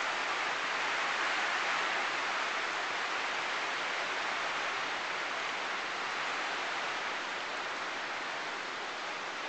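Rain falling steadily: an even hiss with no breaks, easing off slightly toward the end.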